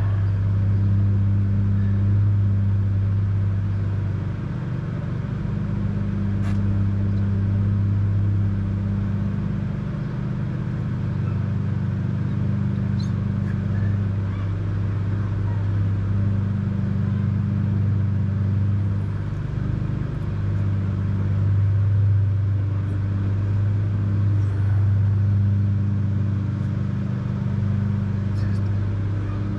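A steady low engine-like hum, shifting slightly in pitch every few seconds, with a few faint clicks.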